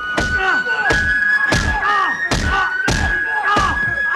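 A man being beaten with wooden sticks: about two to three heavy blows a second, each followed by a short cry that falls in pitch. A held high note of music runs underneath and steps up in pitch a few times.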